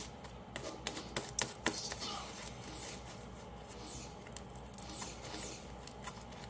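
Fluffy slime being worked by hand: a quick run of small sticky clicks and pops in the first two seconds, then a few softer squelches, over a faint steady hum.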